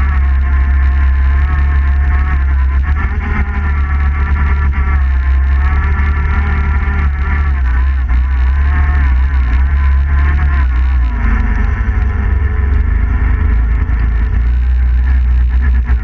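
Suzuki King Quad 750 ATV's single-cylinder four-stroke engine running steadily under load through deep snow, its pitch rising and falling slightly, over a constant low rumble.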